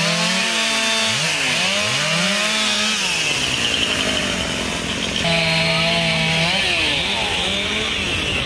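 Chainsaw engine cutting up fallen tree limbs, revving up and down repeatedly about once a second, with a stretch held at a steady pitch about five seconds in.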